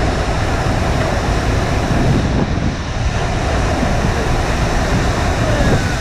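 FlowRider surf simulator: a pumped sheet of water rushing steadily up the padded ramp, with wind buffeting the microphone.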